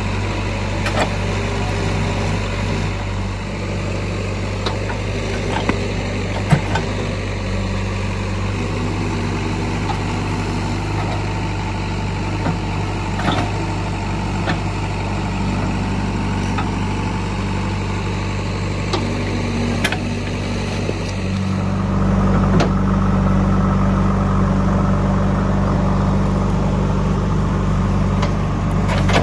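JCB 3DX backhoe loader's diesel engine running steadily, with occasional sharp knocks; about 21 seconds in the engine note rises and grows louder.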